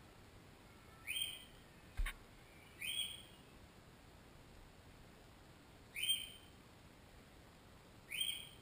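A short high chirp, repeated four times at irregular gaps of about two to three seconds, each one alike. A single sharp click comes about two seconds in.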